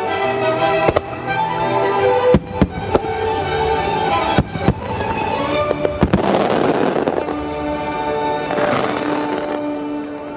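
Starmine aerial firework shells bursting over classical music from the venue's loudspeakers. Sharp bangs come one after another, and crackling showers follow around the middle and again near the end.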